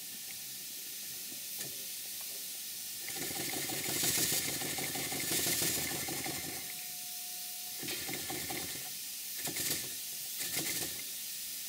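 A 3-inch scale Garrett compound traction engine running on compressed air from an airline, with a steady hiss of air. From about three seconds in it runs for some four seconds with rapid, even exhaust beats, then runs again in three short bursts as the freshly lapped slide-valve regulator is opened and shut.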